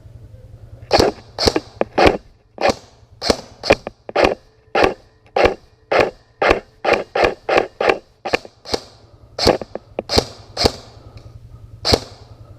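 Airsoft electric guns (AEGs) firing single shots in quick, uneven succession: about two dozen sharp cracks, coming fastest in the middle.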